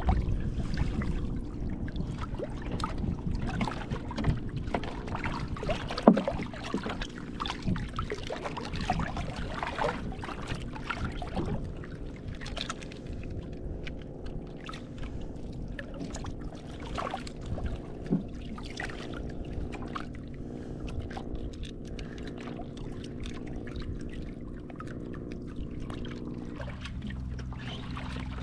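Water lapping and sloshing against the hull of a small outrigger fishing boat, with many light knocks and clicks, over a steady low hum.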